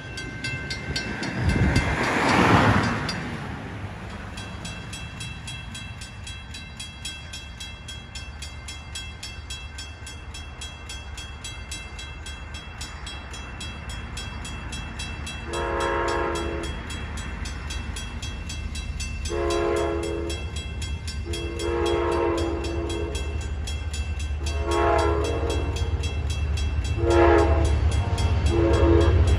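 An approaching Amtrak Genesis diesel locomotive sounding its horn in six blasts, long and short, over a low engine rumble that grows louder as it nears. About two seconds in, a vehicle passes with a short swish.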